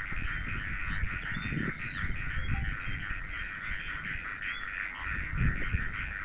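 Steady, finely pulsing chorus of calling insects or frogs with scattered short bird chirps, over low rumbling noise that swells briefly twice.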